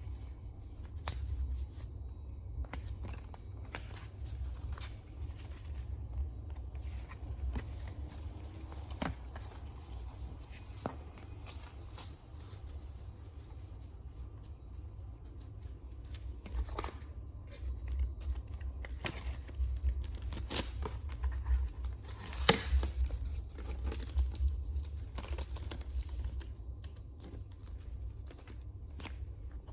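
Hands unpacking stationery: packaging tearing and crinkling, with scattered clicks and taps and a steady low handling rumble. The taps are busier and louder from about eighteen seconds in until near the end.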